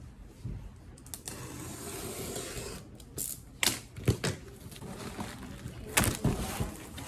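Cardboard shipping box being opened by hand: a string of sharp knocks, scrapes and rustles of cardboard, loudest about four and six seconds in.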